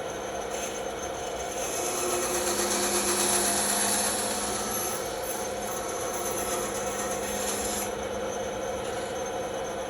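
Bandsaw running and cutting through wood over a steady motor hum; the hiss of the blade in the cut grows louder from about two seconds in and eases off near the end.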